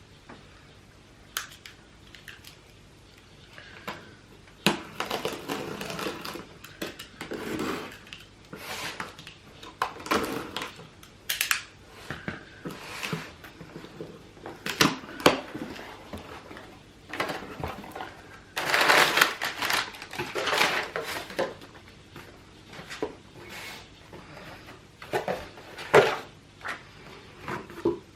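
An iPhone box and its packaging being handled and opened by hand: irregular taps, clicks and rustling of cardboard and paper, beginning about five seconds in, with a longer, louder stretch of rustling a little past the middle.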